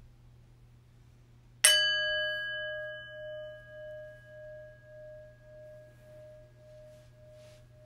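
A bell struck once about a second and a half in, ringing with a clear tone that fades slowly over several seconds with a pulsing waver.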